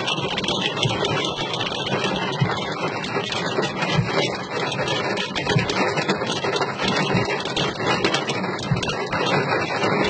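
Rain falling steadily, a dense even hiss with fine crackle throughout.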